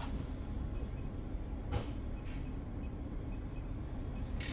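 Steady low rumble of the yacht's onboard machinery, with two faint soft clicks as the cabin door's electronic keypad lock is worked. Right at the end comes a sudden louder clatter as the door is opened.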